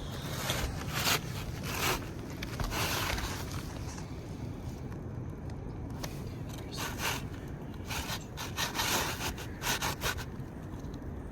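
Replacement asphalt shingle being slid and worked into place under the course above, scraping against the gritty neighbouring shingles in short bursts, one cluster near the start and another in the second half.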